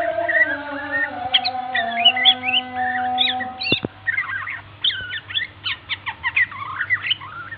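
White-rumped shama song: a fast run of varied whistles and chirps that grows busier in the second half. Steady held tones sound underneath for the first half, and two sharp clicks come about three and a half seconds in.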